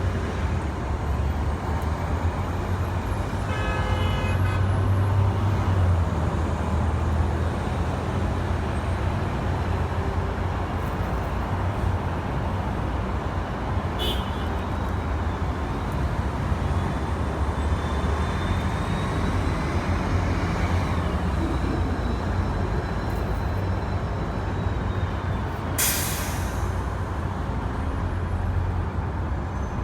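Steady low rumble of road traffic, with a short, sharp hiss near the end and a brief pitched sound about four seconds in.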